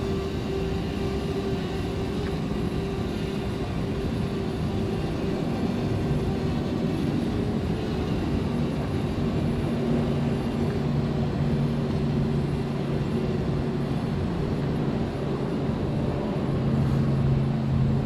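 Small quadcopter drone's propellers humming steadily over a constant rushing noise, the hum's pitch stepping to new steady notes about six and ten seconds in as the drone manoeuvres.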